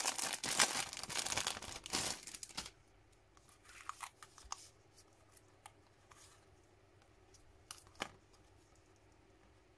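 Clear plastic packaging crinkling and crackling as a thin metal cutting die is slid out of it, stopping after about two and a half seconds. Then a few faint clicks and taps as the die is handled and laid over a clear stamp sheet, the sharpest about eight seconds in.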